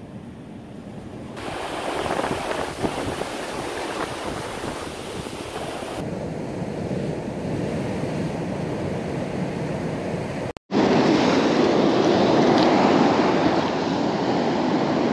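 Ocean surf washing onto a sandy beach, with wind on the microphone; the sound steps up and gets louder after a sudden cut about two-thirds of the way through.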